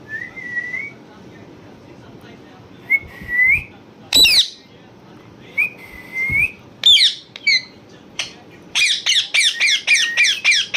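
Parrot giving short whistles, then a single loud harsh squawk about four seconds in and a few more calls. Near the end comes a fast run of squawks, about four a second.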